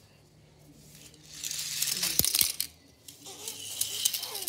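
Die-cast toy cars rolling and being set down on a tiled floor, small wheels rattling and the metal bodies clicking against the tiles and each other. It starts about a second and a half in, pauses briefly, and resumes near the end.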